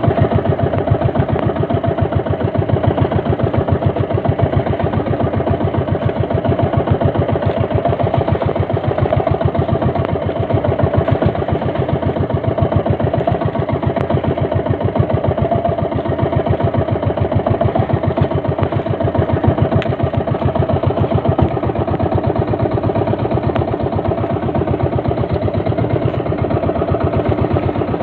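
Small fishing boat's engine running steadily at an even speed, its firing heard as a fast, regular pulse.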